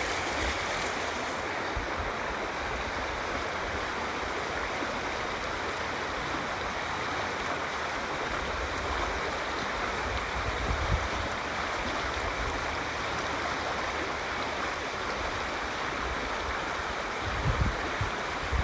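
River water running steadily over rocks, an even rushing noise, with a few low rumbles near the end.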